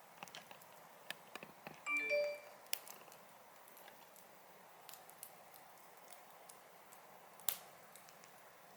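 Wood campfire crackling, with scattered sharp pops and snaps over a faint steady hiss. About two seconds in there is a brief pitched sound, the loudest moment.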